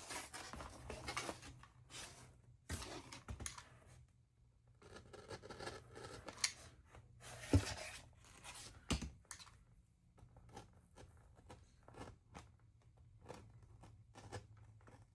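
Craft knife cutting and puncturing through foam board: irregular, scratchy slicing strokes with scattered clicks and a couple of sharper knocks a little past halfway.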